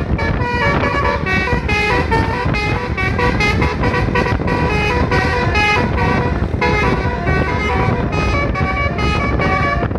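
Telolet basuri vehicle horn playing a fast melody, its notes changing several times a second, over a low rumble.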